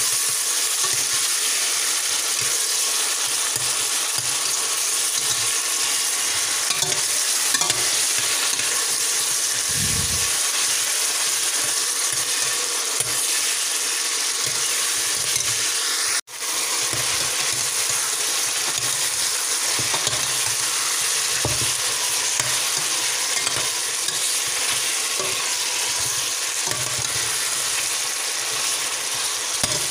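Chopped tomato and onion frying with a steady sizzle in a stainless steel pot, stirred with a metal spoon. After a brief break about halfway through, the sizzling and stirring go on with pieces of lamb in the pot.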